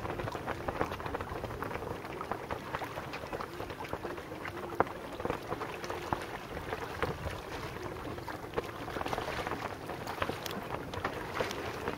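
Bay water lapping and splashing: a steady, irregular crackle of small waves, with some wind.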